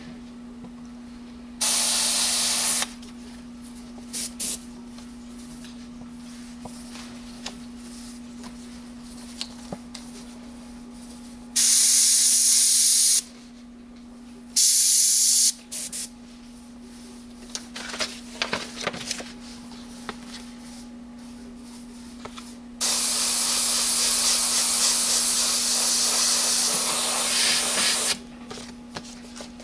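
Airbrush spraying paint in bursts of hiss: three short ones, then a longer spray of about five seconds near the end, with small clicks between them.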